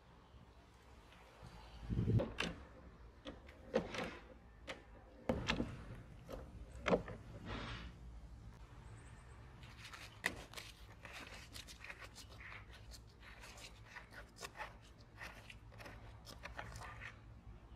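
Handling noises around an old lawn mower: scattered knocks and thuds in the first half, then a run of small clicks and rattles while a hand works the plastic filler cap on the engine.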